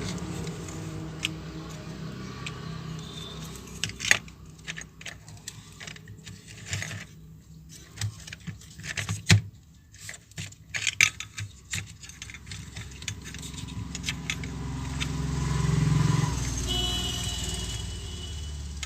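Clicks and rattles of small plastic and metal parts being handled while a Bluetooth speaker is taken apart, most of them in the middle. A low vehicle rumble swells and fades near the end.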